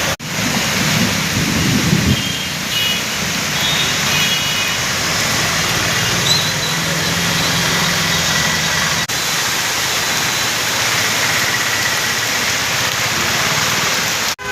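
Heavy rain pouring down with road traffic: a vehicle engine rumbles past about a second in, and faint short high beeps sound a few times.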